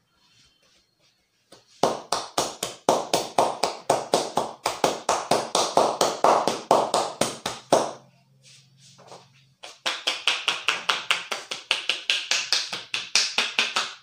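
Percussive hand strikes on a wet scalp in an Indian champi head massage: a fast run of about five slaps a second for some six seconds. After a short pause comes a second fast run of brighter, sharper taps.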